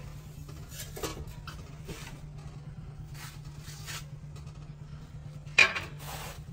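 Kitchen clatter: dishes and utensils clinking now and then, with one sharp, loud clank a little over five seconds in.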